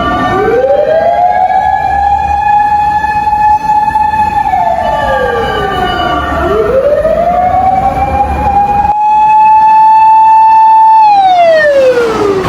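Mechanical motor siren on a Japanese emergency vehicle winding up, holding a steady wail, then winding down, in slow repeated cycles over a low engine rumble. About nine seconds in the sound changes abruptly to a louder siren on the same rise-hold-fall pattern.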